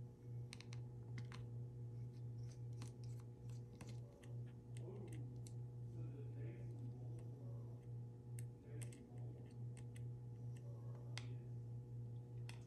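Scattered small, faint clicks and taps of precision tools and tiny screws being worked out of a smartphone's frame, over a steady low hum.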